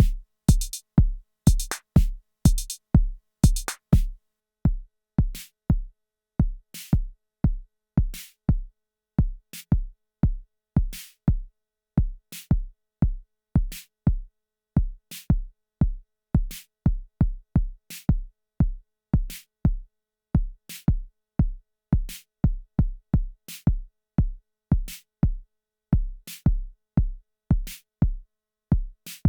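Arturia DrumBrute Impact analog drum machine playing a sequenced beat: a steady deep kick about twice a second under short crisp percussion hits. A busy high, hi-hat-like pattern drops out about four seconds in.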